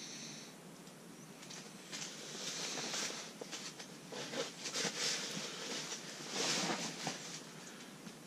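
Irregular rustling and scuffing handling noises, louder in a few bursts of a second or less, with small clicks.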